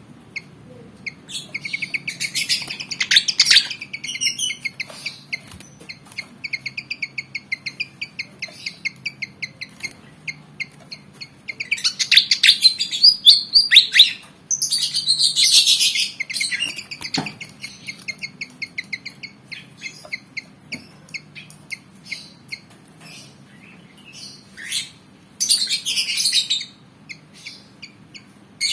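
A fantail (kipasan) singing and chattering in long runs of rapid, repeated short notes, with louder excited bursts about 12 to 16 seconds in and again near the end.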